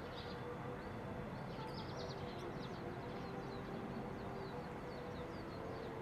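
Steady background rumble with small birds chirping in short, high calls again and again.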